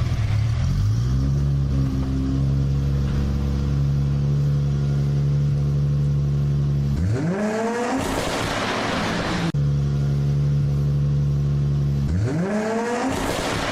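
Performance car engine idling, then revved hard twice, the pitch sweeping sharply upward each time into a loud, rasping howl; after the first rev it drops suddenly back to idle. The rev has a high, meowing character.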